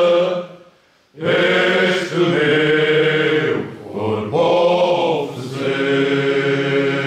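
A group of men singing Cante Alentejano unaccompanied, slow long-held notes. The singing stops for about half a second shortly after the start, comes back in, dips briefly past the middle, then settles on a long sustained chord.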